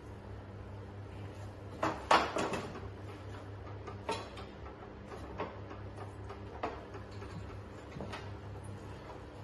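Knocks and clatter of a touchscreen monitor being set down on a stand's tray, loudest in a quick cluster about two seconds in, followed by four single lighter taps as it is handled, over a steady low hum.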